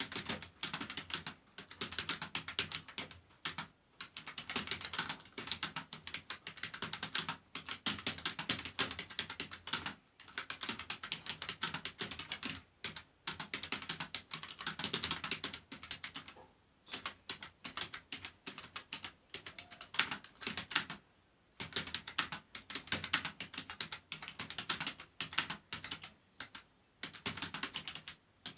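Fast, continuous typing on a computer keyboard: a dense run of key clicks with short pauses about 4, 10, 17 and 21 seconds in. A faint steady high whine sits underneath.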